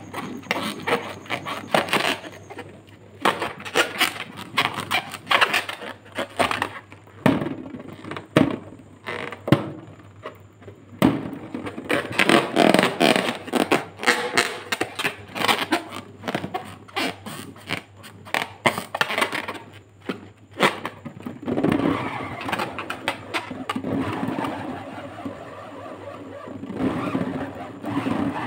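Fingers rubbing and squeezing an inflated latex balloon, giving a dense run of squeaks and scrapes against the rubber.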